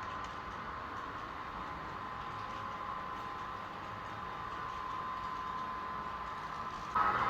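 Sound-equipped model diesel locomotive running: a steady engine sound from a small onboard speaker, with faint ticking from the train on the track. It gets suddenly louder near the end.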